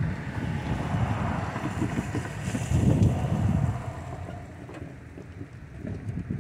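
Gusty wind buffeting the microphone: a loud, uneven low rumble that swells and fades, strongest about three seconds in.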